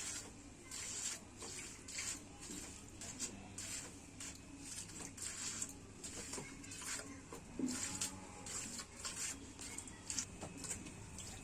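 A cow being milked by hand: short hissing squirts of milk from the teats, repeating in a steady rhythm at about two a second.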